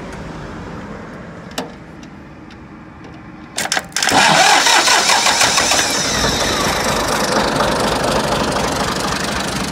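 Ford 4600 tractor engine being started: a few clicks, then about four seconds in it fires suddenly and keeps running steadily.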